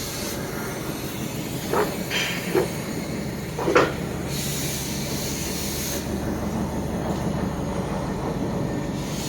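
Hydraulic baler's electric motor and oil pump running with a steady low hum, a few short knocks about two to four seconds in, and a brief hiss a little past halfway.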